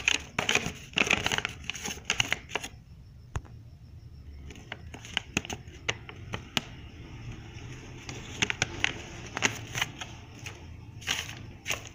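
Paper sheets rustling and crinkling as they are unfolded and handled, in irregular bursts of crackles, with a quieter stretch about three seconds in.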